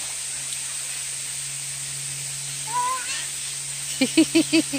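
Steady hiss of a shallow creek running over rock, with a toddler's voice: one short call about three seconds in, then five quick short cries near the end as his feet go into the cold water.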